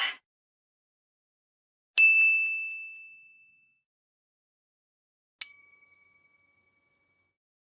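Two separate ding sound effects, about three and a half seconds apart. Each is a single bright struck tone that rings and fades over about a second and a half. The second is a little lower in pitch than the first.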